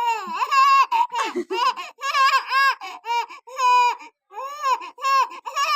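A small child's high-pitched voice in a quick run of short, rising-and-falling squeals and babbles, with hardly a pause.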